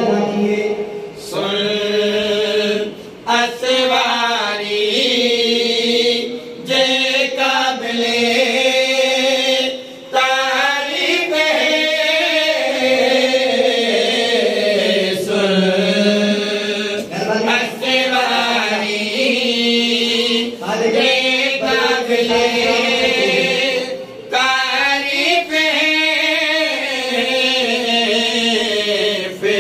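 Men's voices chanting a melodic devotional recitation together, with long held, wavering notes and short breaks between phrases.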